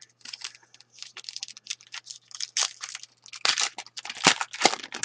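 A foil trading-card pack wrapper being torn open and crumpled: a dense run of crackling and tearing, loudest in the second half.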